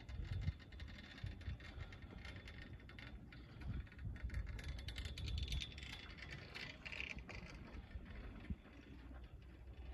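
Ride noise on an SLI double chairlift: wind buffeting the microphone with a low, gusty rumble, and scattered light clicks and rattles from the moving chair.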